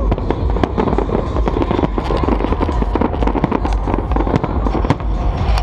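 Aerial fireworks barrage: many shells bursting in quick succession, rapid overlapping bangs and crackles over a continuous deep rumble of booms.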